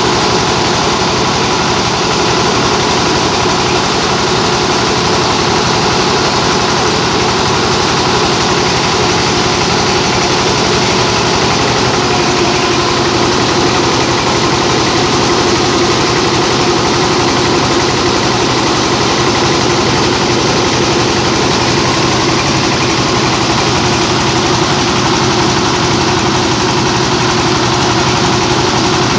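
A rice mill hulling paddy, driven by a 24-horsepower engine, running loud and steady with an even machine hum and hiss that does not change.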